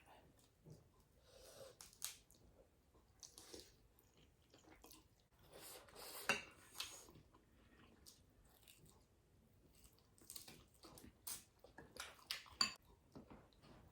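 Faint close-up eating sounds: chewing and biting into food, with scattered small clicks of cutlery on a dish.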